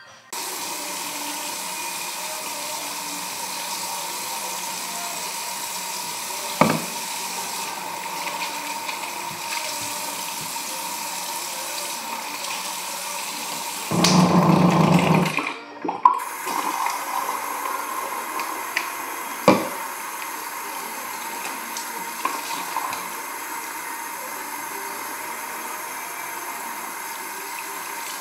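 Bathroom sink tap running steadily into the basin. About halfway through, a louder rush lasts a second or so. Two sharp knocks come, one before it and one after.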